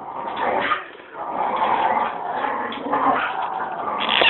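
Dog whimpering and yipping in uneven bursts, loudest near the end.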